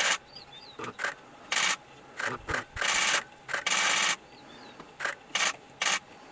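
A run of about a dozen short rasping, rubbing scrapes at an irregular pace, some brief and some lasting up to half a second.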